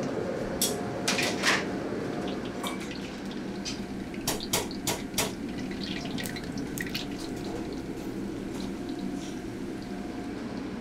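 Hot oil in a carbon-steel wok bubbling and sizzling as crumb-coated dough rolls deep-fry, with sharp pops and clicks scattered through it, most a second in and again around four to five seconds in.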